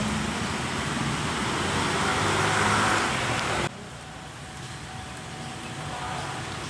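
Steady rush of passing traffic noise, swelling a couple of seconds in and then dropping abruptly about halfway through to a quieter, steady hum.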